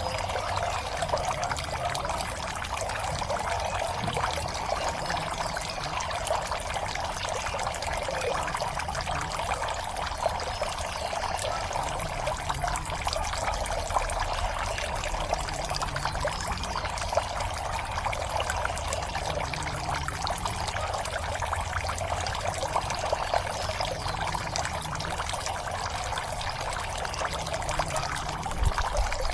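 Water steadily pouring and trickling into a pond, a continuous splashing without pause.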